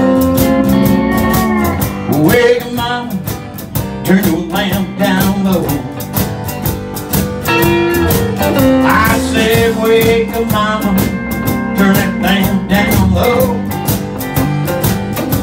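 Live country band playing a song: strummed acoustic guitar, electric bass and drum kit keeping a steady beat, with sliding lead lines over the top.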